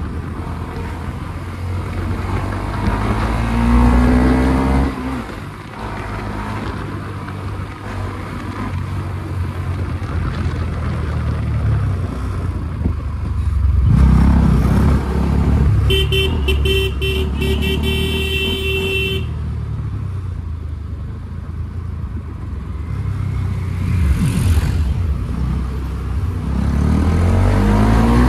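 Motorcycle engines running and revving, the pitch climbing as they accelerate a few seconds in and again near the end. Midway a vehicle horn sounds for about three seconds with a rapid stutter.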